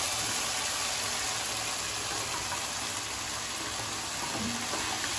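Chicken pieces frying in oil in a nonstick kadai, a steady sizzle as the water released from the chicken cooks off, with a wooden spatula stirring them.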